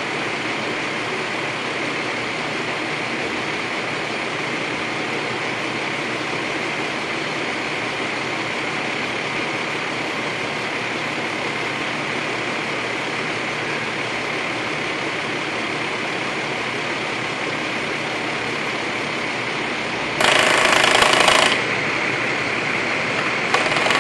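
Bucket truck's engine running steadily, with a mechanical rattle. About twenty seconds in, a much louder noise starts abruptly and stops just over a second later, then returns near the end.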